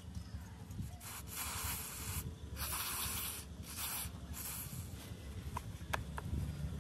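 Aerosol spray can with a straw nozzle hissing in four short bursts, followed by a few sharp clicks near the end.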